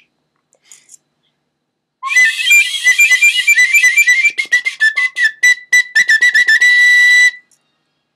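A small wooden end-blown pipe, a whistle-flute, played shrilly. About two seconds in it starts a fast run of short, wavering high notes, then holds one high note that cuts off suddenly near the end.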